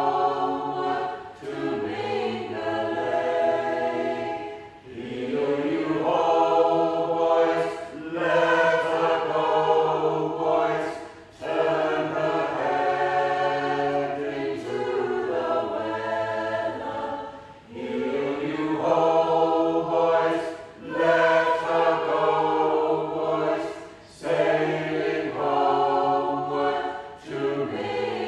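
Mixed choir of men's and women's voices singing together in harmony, in phrases a few seconds long with short breaths between them.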